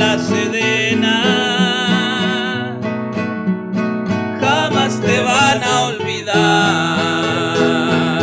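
Corrido music: strummed acoustic guitars under a held, wavering melody line, playing the song's closing bars.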